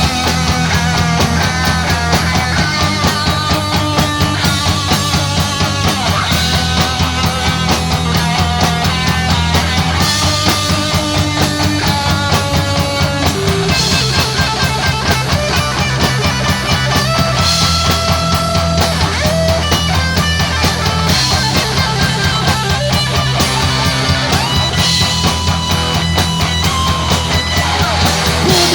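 Instrumental break in a loud rock song: electric guitar playing a melody over bass and drums, with no singing.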